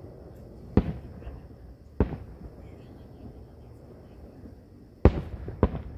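Aerial firework shells bursting: four sharp booms, one about a second in, one at two seconds, and two close together near the end, the third the loudest.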